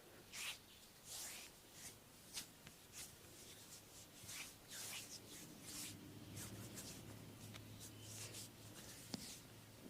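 Hands rubbing and sliding over bare skin in a back massage: a string of short, soft swishes with a few light clicks and taps.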